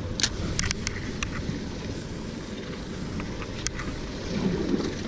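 Wind buffeting the microphone and water sounds around a small boat on open water, with a few sharp clicks in the first second and a half and one more a little after the middle from handling a spinning rod and reel.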